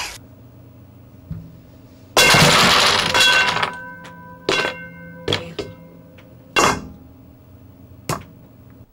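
A tower of wooden Jenga blocks collapsing onto a tabletop in one loud clatter about two seconds in, with a ringing tone lingering after it. Then five separate sharp clacks follow as loose blocks are knocked or handled.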